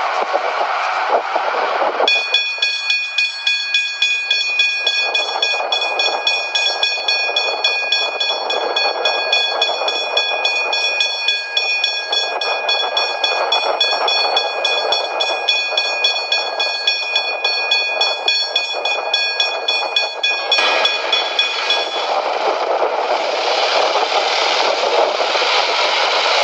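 Railway level crossing warning bell, pitch-shifted higher, ringing rapidly and continuously from about two seconds in and stopping suddenly about twenty seconds in. A steady rushing noise lies under it and runs on before and after the bell.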